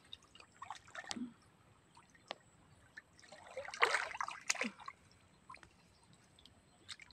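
Shallow stream water sloshing and splashing as hands grope about in it, in short uneven splashes, with a louder run of splashing about four seconds in.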